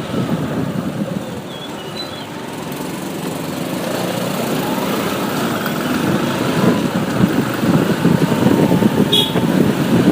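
Motorcycle riding in traffic: steady engine and road rumble that grows gradually louder, with a brief high-pitched chirp about nine seconds in.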